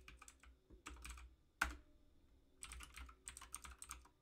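Computer keyboard typing: faint short runs of keystrokes, with one sharper, louder key press about a second and a half in, then a longer run of keystrokes near the end.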